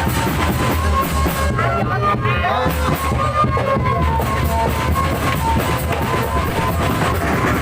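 Loud band music with drums keeping a steady beat under a melody held on long notes, with a brief run of sliding notes about two seconds in.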